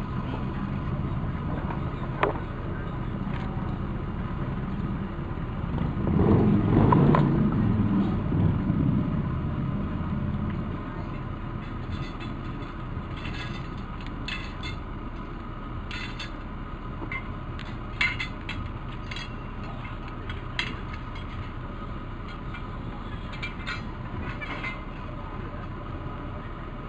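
Car engine and road noise from a vehicle driving slowly along a street, a steady low rumble. About six seconds in a louder rumble swells up and fades away over the next few seconds.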